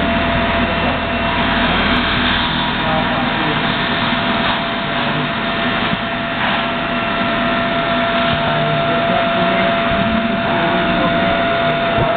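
CNC milling machine running, a steady whine over continuous machining noise; a low hum drops away about two seconds in.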